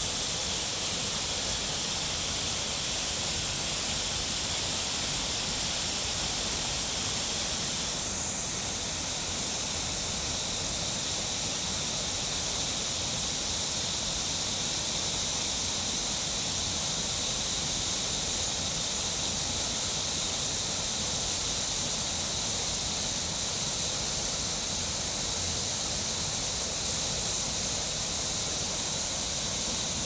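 River water rushing over rocky cascades: a steady, even white-water rush.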